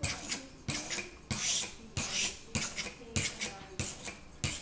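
Coarse sharpening stone on a guided fixed-angle sharpener being stroked along the steel of an old kitchen knife, grinding a new bevel. It makes a rhythmic rasp, about eight strokes, each opening with a light knock.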